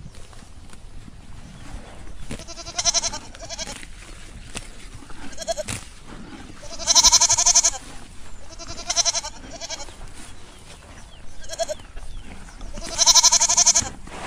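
Goats bleating: about eight wavering calls, some short and faint, with two long, loud bleats about seven and thirteen seconds in.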